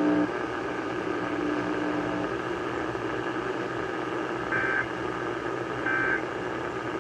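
EAS end-of-message data bursts heard over AM radio static: two short, harsh digital squawks about a second and a half apart, the coded signal that closes the emergency alert test. A faint steady hum sits under the static in the first two seconds.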